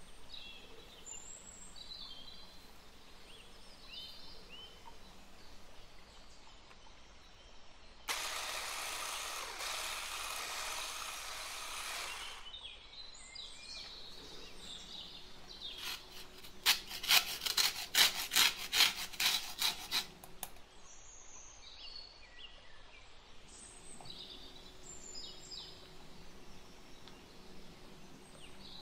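Birds chirping in the background. For about four seconds a steady hiss comes in. Later a quick run of sharp scraping strokes, about three or four a second, lasts about four seconds and is the loudest part.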